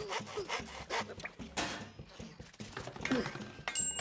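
Film sound effects of small hand tools being worked in quick succession: a busy run of clicks, knocks and scraping, with a brief squeak about three seconds in and a short high ringing chime near the end.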